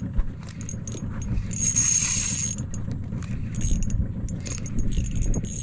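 Spinning reel being cranked in short spells, its gears whirring, with scattered clicks and handling knocks over a steady low rumble.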